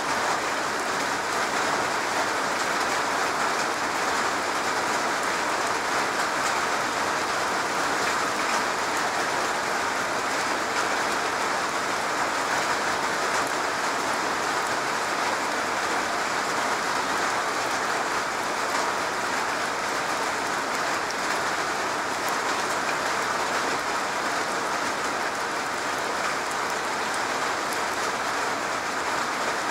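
Steady rain falling on a garage roof: a dense, even patter of drops that does not let up.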